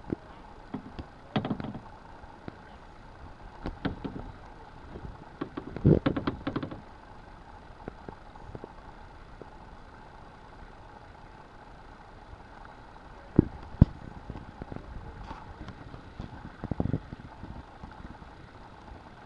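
Paddling a small boat on calm water: a handful of irregular dull knocks and splashes from the paddle and hull, the loudest about six seconds in and a sharp double click about halfway through, over a faint steady background.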